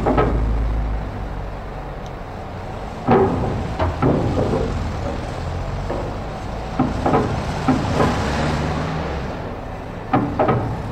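Cars being driven off a ferry, their wheels knocking over the vehicle ramp in sharp clanks, often in close pairs, over a steady low engine rumble.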